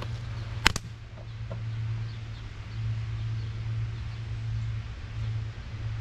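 A steady low hum, with two sharp clicks a little under a second in and a couple of faint taps soon after.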